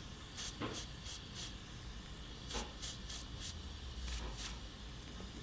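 Hot tip of a butane soldering iron dabbed repeatedly into a wet tip-cleaning sponge, giving a string of short, faint hisses that stop about four and a half seconds in.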